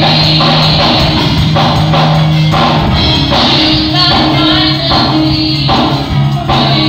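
Live gospel song sung by a small group of young female singers on handheld microphones, backed by electric keyboard and percussion, loud and continuous.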